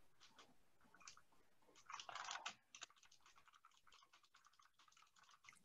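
Near silence, with faint scattered clicks and taps of typing on a computer keyboard, a little busier about two seconds in.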